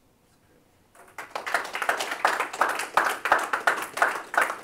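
Audience clapping, starting about a second in.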